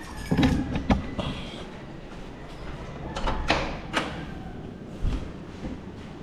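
A door and household items being handled. There is a cluster of knocks and clatters in the first second, a scraping pair of knocks near the middle, and a single low thump about five seconds in.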